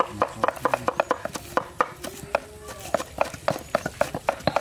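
Several knives chopping leafy greens on thick wooden chopping blocks: rapid, irregular knocks of blade on wood, several a second and overlapping as more than one person chops at once.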